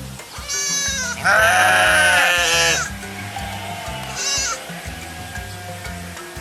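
Sheep bleating three times: a short bleat, then a longer, louder one right after, and a brief one a couple of seconds later, each with a wavering pitch, over a background music bed.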